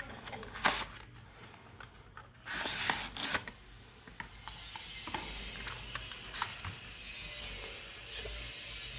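Packaging and a cable being handled: scattered clicks and taps, and a brief rustle about two and a half seconds in. A steady faint hiss takes over from about the middle.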